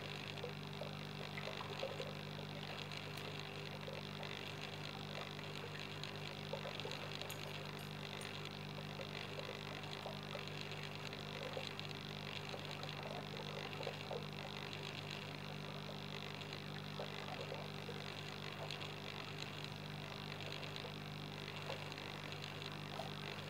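Steady hum of aquarium equipment (pump), with several steady low tones and faint crackling of water and air bubbles.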